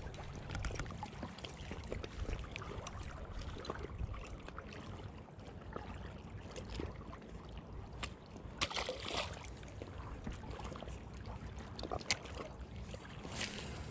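Small white bass being unhooked and released by hand: scattered clicks of lure, hook and hands over a steady wash of wind and water at the bank, with a short splash about nine seconds in as the fish goes back into the water.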